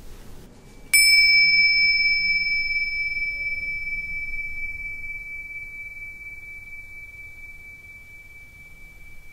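A small bell struck once about a second in, then ringing on with one clear high tone that slowly dies away. Its higher overtones fade out within a few seconds.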